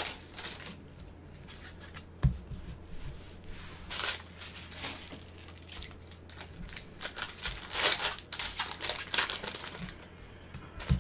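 Football trading cards and torn pack wrappers being handled on a table: foil crinkling, rustling and card clicks come in short bursts, with a sharp knock about two seconds in, over a steady low hum.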